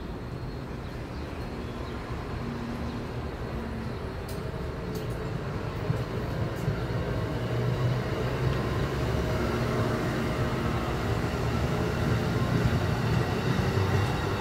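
Amtrak Northeast Regional passenger coaches rolling past as the train pulls out of the station: a steady rumble of wheels on rails that grows gradually louder.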